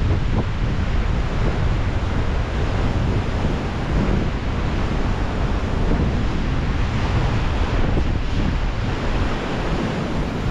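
Ocean surf washing steadily over a rocky shore, with wind buffeting the microphone as a low, fluttering rumble.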